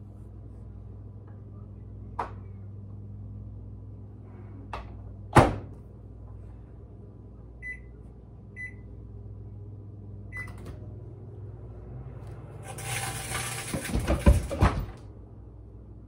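Over-the-range microwave oven: a steady low hum, its door shut with a loud click about five seconds in, then short keypad beeps. Near the end, about two seconds of loud crackling noise with sharp pops.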